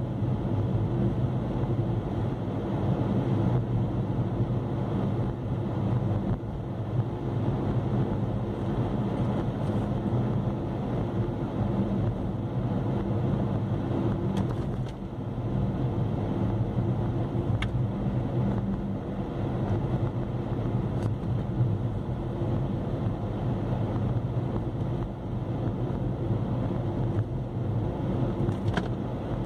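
Steady running noise of a moving road vehicle: a continuous low engine and road hum at an even speed, with some wind noise.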